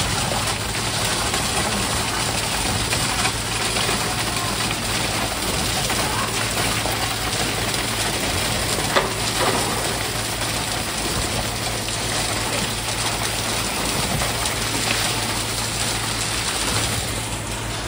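Concrete pump running steadily, with the rushing pour of wet concrete from its delivery pipe into wall formwork. A single sharp knock about halfway through.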